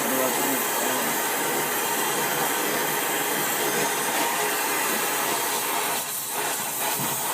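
Oxy-acetylene torch flame hissing steadily as it heats a brazed copper joint so the pipe can be pulled free. It dips briefly about six seconds in.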